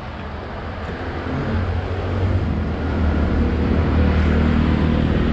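Low rumble of wind and road noise on a moving bicycle's action camera, growing louder about two seconds in and then holding steady.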